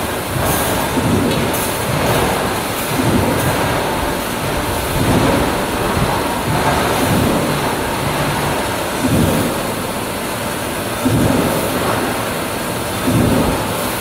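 Wire mesh welding machinery running in a factory: a steady mechanical clatter with heavier thumps every second or two.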